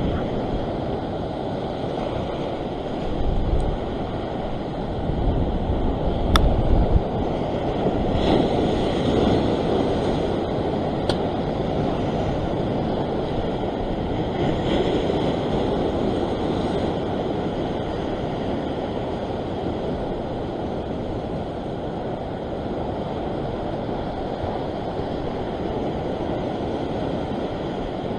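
Ocean swell surging and breaking white over a rock ledge, in a steady wash that swells and fades. Wind buffets the microphone in gusts, strongest about six seconds in, and there are two faint sharp clicks.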